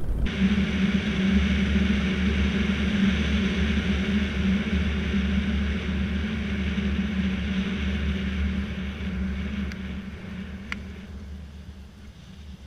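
Vittorazi Moster 185 two-stroke paramotor engine and propeller running at a steady pitch, fading gradually over the last few seconds.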